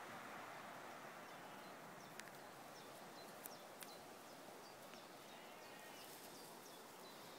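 Near silence: a faint steady outdoor hiss, with a few faint sharp clicks and short faint high chirps.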